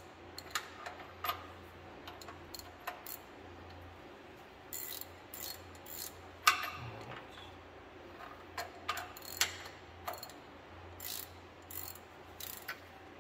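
Hand ratchet wrench clicking in short bursts while tightening the connecting-rod cap nuts inside a John Deere two-cylinder engine, with scattered metal clinks and one sharper clank about six and a half seconds in.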